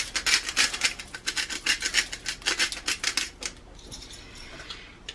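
Salt being dispensed over raw chicken thighs: a fast, dry run of rasping clicks that thins to a faint hiss about three and a half seconds in.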